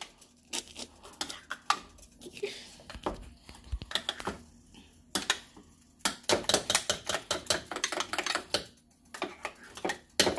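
Cut raw potato fries tossed and mixed by hand in a glass dish: irregular clicking and clattering, with quick runs of clicks in the second half.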